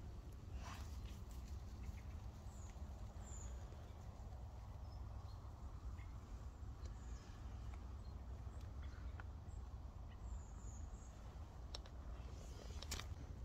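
Faint outdoor ambience: a low steady rumble with a few short, faint high bird chirps and a couple of sharp clicks, one shortly after the start and one near the end.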